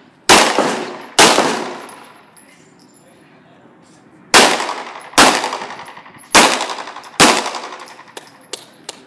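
9mm Glock pistol fired six times in pairs, each pair of shots a little under a second apart: two near the start, then a three-second lull, then two quick pairs. Each shot rings out with a long echo under the covered range's roof. A few faint ticks follow near the end.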